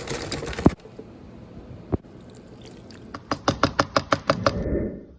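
A hissing rustle and a click, a single click about two seconds in, then a quick run of about ten sharp clicks, followed near the end by a car engine starting up with a low rumble.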